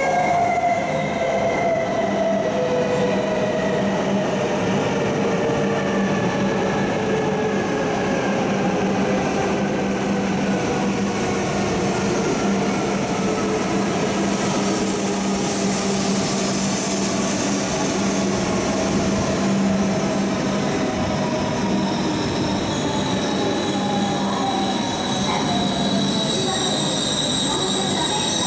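E5 series Shinkansen pulling in along the platform and slowing: a continuous rush of train noise with several whining tones that fall steadily in pitch as it loses speed. A high, steady squeal comes in near the end.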